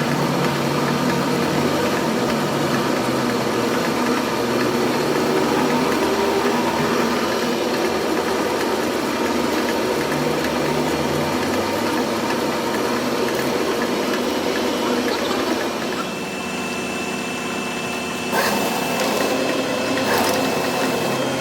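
A workshop machine running steadily with a constant mechanical drone. Its sound changes and drops a little about 16 seconds in, and a couple of sharp clicks come near the end.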